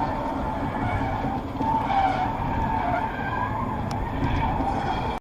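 A car driving: steady road and engine rumble, with faint wavering higher tones over it.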